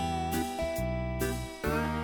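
Background music: a light, guitar-led tune.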